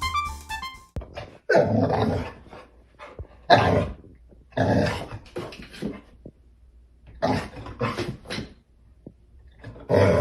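A dog barking and growling in five short, harsh bursts a second or two apart.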